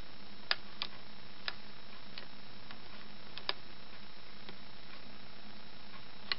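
Sparse, irregular small metallic clicks, about eight in all, from the gears and slide inside an opened Roto multipoint-lock main lock being turned by hand to try the latch. A faint steady hum runs underneath.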